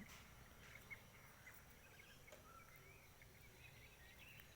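Near silence: faint outdoor ambience with scattered faint chirps, likely from distant birds.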